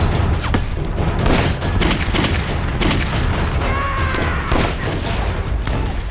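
Battle gunfire: a dense fusillade of rifle and machine-gun shots, several a second, over a constant low rumble. A short wavering high tone sounds about four seconds in.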